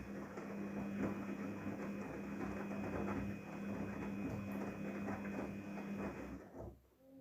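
Daewoo DWD-FT1013 front-loading washing machine running early in a Cotton 40°C wash: a steady motor hum under the churning of water and laundry in the turning drum. The machine falls quiet about six and a half seconds in, as the drum stops between turns.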